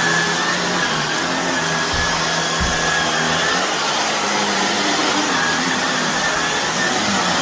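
Shark vacuum cleaner running steadily over a carpet laden with dry soil and debris, its motor whine wavering slightly, with two dull knocks about two and two and a half seconds in.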